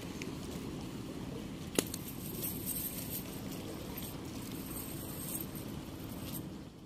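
Cast net being handled: soft rustling and light clinking of its weighted lead line, with one sharp click about two seconds in, over a steady rush of river water.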